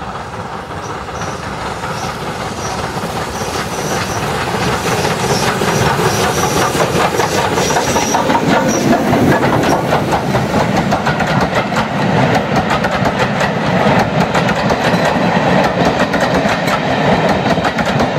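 A steam-hauled passenger train passing close by, growing louder over the first several seconds as the locomotive draws near. The coaches then roll past with a rapid, steady clickety-clack of wheels over the rail joints.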